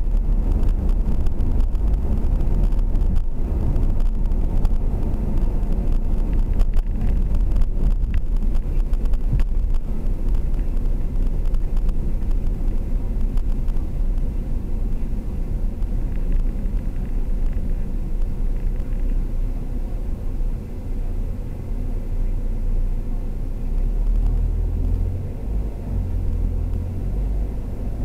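Car driving along a road, heard from inside the cabin: a steady low rumble of engine and tyre noise, a little quieter in the second half.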